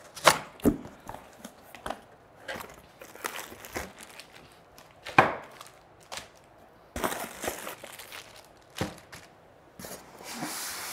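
A cardboard box being opened and unpacked: flaps and packing knocking and rustling, with plastic accessory bags crinkling. Near the end, a white foam packing block slides out against the cardboard with a steady rubbing.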